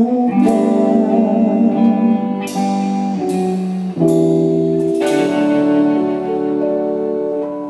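A small band's guitars playing held chords without vocals, the chords struck again several times, with the last chord ringing out and fading near the end.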